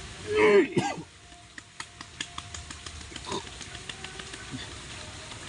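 A short, loud grunting vocal sound from a person, its pitch bending down, about half a second in, followed by scattered light clicks and taps over a steady background hiss.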